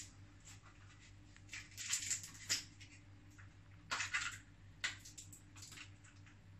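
A small plastic container handled and opened by hand: a few scattered sharp clicks and rattles, in a cluster about two seconds in and again around four to five seconds in, over a faint steady hum.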